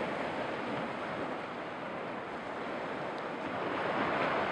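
Sea surf washing on a rocky shore, a steady rushing hiss that ebbs and then swells louder near the end.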